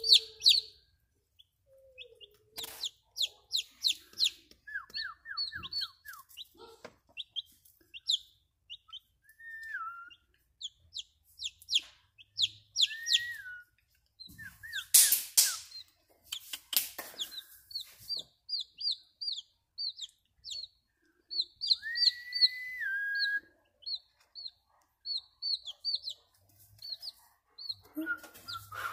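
Chicken chicks peeping in quick runs of short, high peeps, with a few lower, longer calls that slide down in pitch. A brief scuffling noise comes about halfway through.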